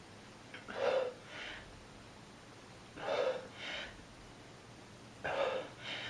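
A man's heavy breathing while straining through push-ups: three hard breaths, each followed by a softer one, about two seconds apart.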